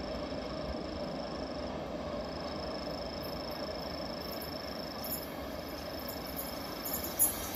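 An approaching train heard from trackside: a low steady rumble, with a thin high steady tone that breaks off a few times and a short sharp knock near the end.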